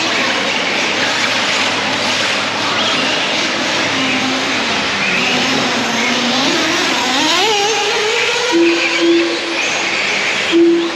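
Electric off-road RC race cars running on a dirt track: motors whining over tyre and dirt noise, with the pitch climbing as the cars accelerate a little over halfway through. Several short steady tones come in near the end.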